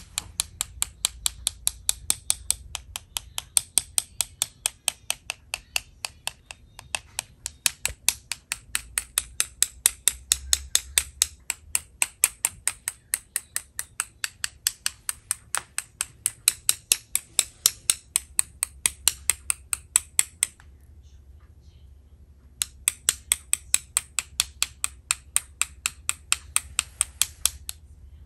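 A paintbrush tapped sharply and rapidly against a brush handle or finger to spatter paint dots onto the paper, about four taps a second. The tapping stops for about two seconds near the end, then starts again.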